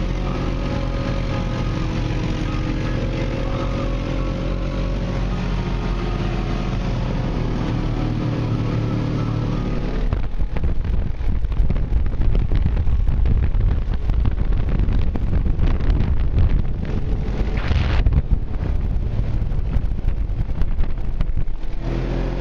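Polaris RZR side-by-side engine running at a steady cruising speed, heard from its cab. About ten seconds in, rough wind buffeting on the microphone drowns it out until near the end.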